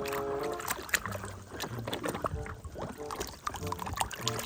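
Water sloshing and splashing with small knocks as a muddy plastic toy is rubbed and rinsed by hand in a basin of clean water.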